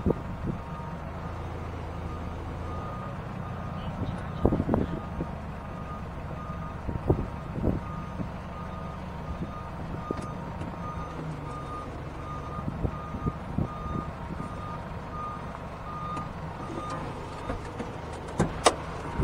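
A tow truck's backup alarm beeping at a steady even pace over the idling engine, stopping about fifteen seconds in. A few sharp knocks are heard along the way.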